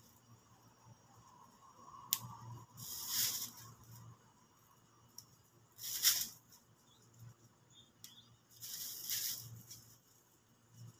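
Short bursts of rustling, about four of them, with a sharp click about two seconds in: dates being picked by hand from a date palm into a plastic bag.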